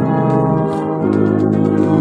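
Brass band playing at close range, euphoniums and other brass holding chords that change about every half second, with frequent sharp accents.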